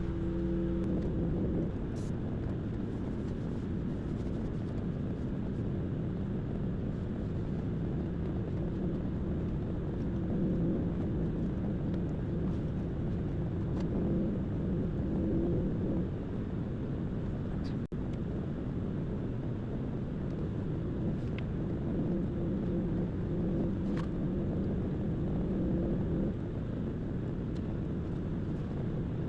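Vacuum cleaner running steadily, its motor holding a low, even hum, with a few faint clicks.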